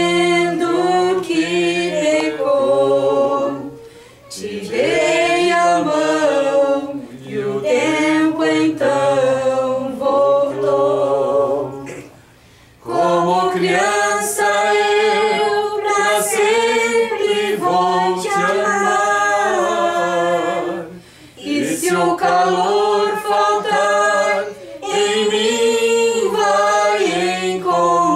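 A small group of voices, a man, a woman and two girls, singing a Portuguese song together from song sheets, in phrases with brief pauses between them.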